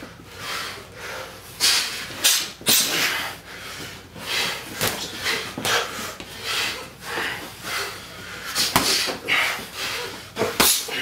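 Boxers sparring: short, sharp hissing exhales as punches are thrown, broken by a few sharp smacks of gloves landing.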